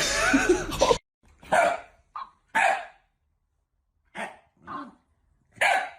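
A dog barking in short single barks, about six spread over four seconds, after music and voice cut off abruptly about a second in.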